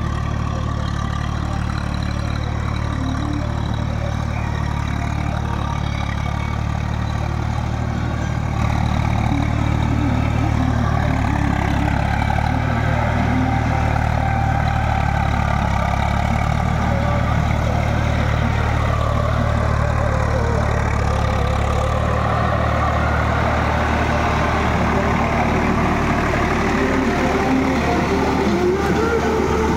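Swaraj tractor's diesel engine running steadily under load while it drives a rotavator through a flooded, muddy field. It gets louder about eight and a half seconds in.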